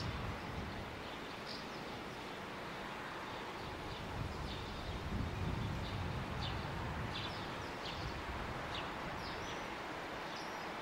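Faint low rumble of a Matterhorn Gotthard Bahn Deh 4/4 baggage railcar approaching, under a steady outdoor hiss, with small birds chirping now and then.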